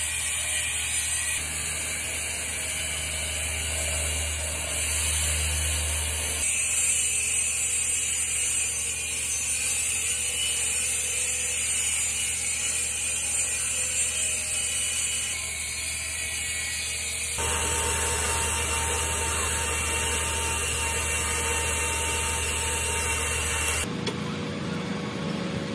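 Husqvarna cut-off saw running and cutting into concrete steps, a steady high-pitched mechanical noise with a strong hiss. Its sound changes abruptly a few times, and near the end a different, lower steady running noise takes over.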